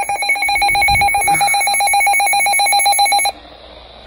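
Emergency Alert System attention signal: a loud, steady, fluttering two-tone alarm that cuts off suddenly a little over three seconds in, leaving a low hiss.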